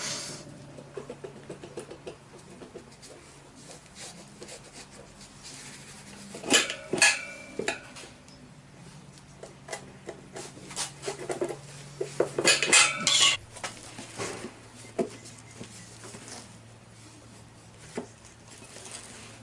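Metal tools clinking and scraping against a spoked motorcycle wheel's rim as the tire is levered off and the inner tube is pulled out. Two bursts of sharp, ringing metallic clanks come about six and twelve seconds in.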